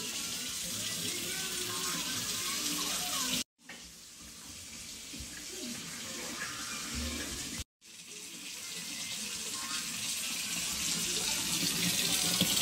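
Steady rush of running water, like a tap running, in three short stretches separated by abrupt cuts.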